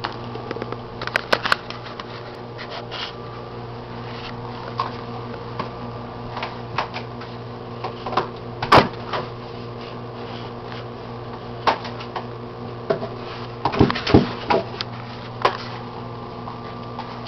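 German shorthaired pointer puppy batting and nosing an ice cube across a hard floor: scattered clicks and knocks of ice and claws on the floor, with a sharp knock about nine seconds in and a quick run of them around fourteen seconds. A steady low hum runs underneath.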